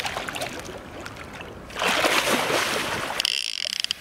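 Large wels catfish thrashing and splashing at the surface beside the boat, with a loud burst of splashing about two seconds in. Near the end, a short high rattling buzz.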